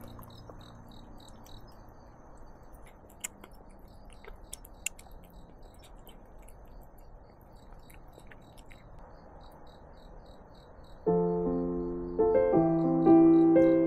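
Quiet background with a faint high chirp repeating a few times a second and a few small clicks from a cat eating wet food off a plate. About eleven seconds in, background piano music starts and becomes the loudest sound.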